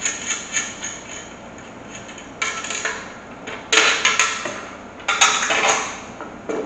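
Metal clinks, scrapes and rattles as the chicken plucker's steel legs and wheel brackets are unscrewed and handled, in a few short bursts with small clicks between.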